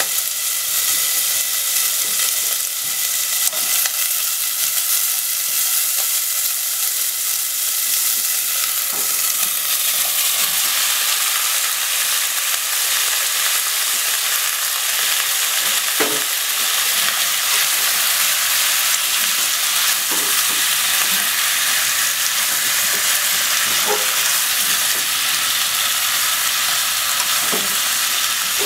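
Food sizzling in a nonstick pot on a gas burner: pork slices frying, then potato, konnyaku and onion stir-fried together. The sizzle changes and fills out about ten seconds in. In the second half a wooden spatula stirs the pot with a few scattered knocks.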